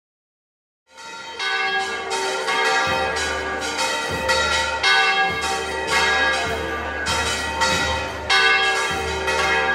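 Church bells ringing a fast festive peal, about two strikes a second with the tones ringing on and overlapping, starting suddenly about a second in.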